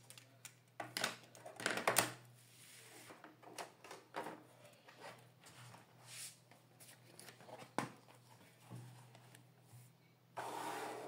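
Stationery handling: pens set down with light clicks and knocks, and pages of a spiral-bound grid notebook turned over and rustled. Near the end there is a longer paper swish.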